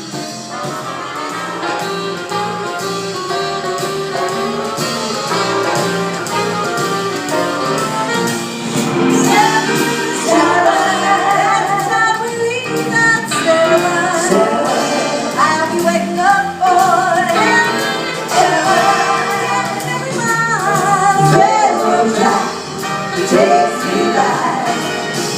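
Jazz-style music with singing; the voice grows stronger about nine seconds in.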